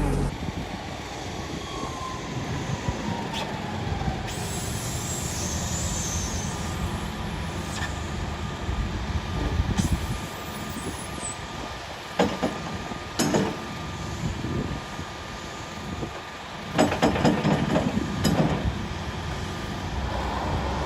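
Low, steady rumble of a running machine or vehicle, with sharp metallic clanks and knocks, one at about twelve and one at about thirteen seconds in, and a quick cluster a few seconds later.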